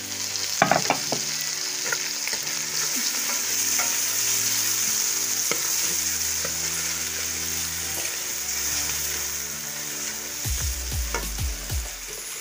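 Onions, tomatoes and freshly added ground spices sizzling in hot oil in a pan, stirred with a metal spoon that clinks against the pan a few times about a second in. A few dull low knocks near the end.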